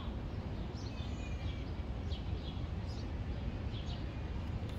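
Outdoor background: a steady low rumble and hiss, with a few short bird chirps scattered through.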